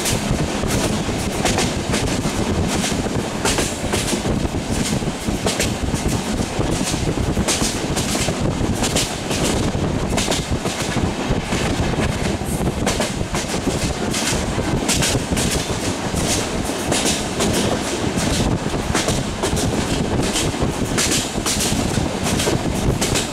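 Running passenger train heard from an open carriage window: a steady rumble of wheels on the track with repeated sharp clacks, about one or two a second, as the wheels cross rail joints.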